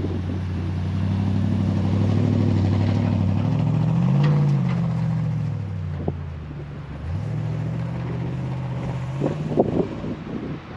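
Pickup truck engine running, its pitch rising and falling about four seconds in as it revs, then dipping briefly about seven seconds in before settling back to a steady run.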